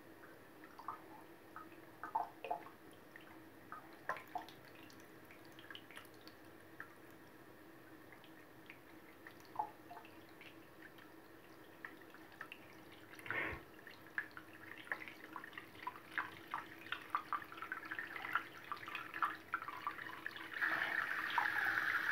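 Faint water drips falling into a bathroom sink, sparse at first and coming faster in the second half. Near the end they give way to a steady trickle of running water.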